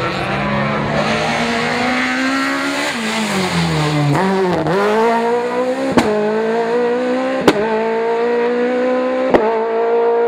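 Rally car engine running hard: the revs climb, drop sharply, then climb steadily again under acceleration. Three sharp cracks come over the engine in the second half.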